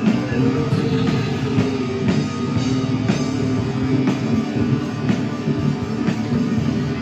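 Rock music playing steadily.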